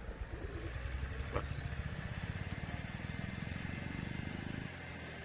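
A low, rapidly pulsing rumble like a small motor, which cuts off suddenly near the end. There is a single click about a second and a half in and a faint high chirping about two seconds in.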